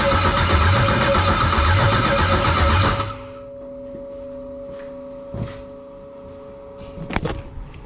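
Starter cranking the LS LM4 5.3-litre V8 with a rhythmic, even churn, and the engine does not catch: a no-start. The cranking stops suddenly about three seconds in, leaving a faint steady tone and a couple of short knocks near the end.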